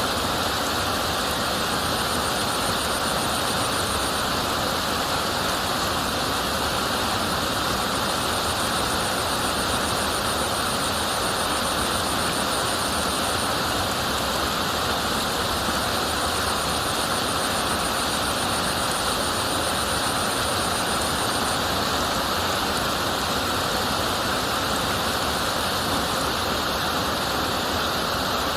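River water flowing and rushing steadily. A faint, high, rapidly pulsing trill comes and goes three times above the water noise.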